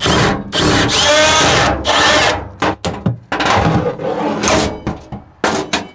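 A cordless drill runs in bursts, its motor whining as it backs out the screws that hold a camper's range hood. This is followed by knocking and rattling as the loosened hood is pulled free and handled.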